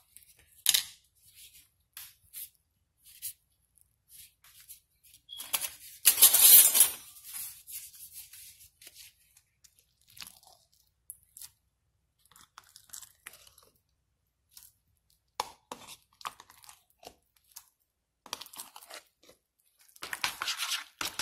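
Kitchen handling as mayonnaise is spooned into a plastic bowl of mustard and ground black pepper: scattered light clicks and scrapes, with a brief louder scraping rustle about six seconds in. Near the end, denser scraping of a spoon in the plastic bowl.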